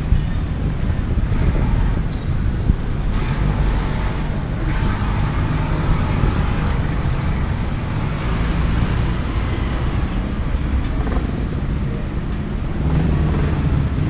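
Road traffic: vehicle engines running in a steady low rumble, with the noise of passing traffic over it.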